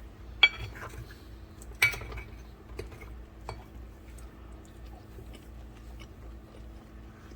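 Cutlery clinking against a plate twice, each strike ringing briefly, followed by fainter small taps and scrapes.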